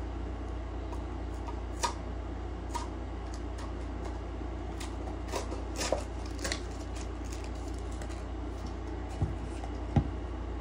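Scattered small clicks and taps of a plastic tub of Alpha Lion Superhuman Pre powder and its scoop being handled, with the sharpest tap about a second before the end, over a steady low hum.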